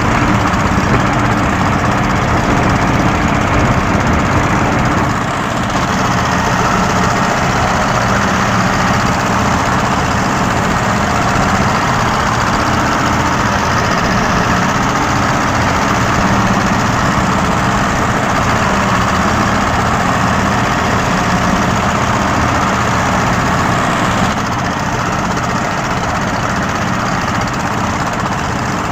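Small purse-seine fishing boat's engine running steadily under way through heavy waves, with a continuous rush of wind and water over it. The level drops slightly about five seconds in and again near the end.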